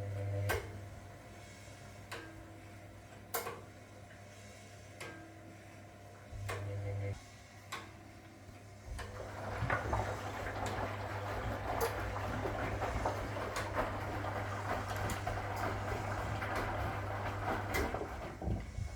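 1961 AEG Lavamat Noris front-loading washing machine mid-cycle: the drum motor hums briefly, goes quiet with a few scattered clicks, then runs again from about halfway with a steady swishing noise over the hum until near the end.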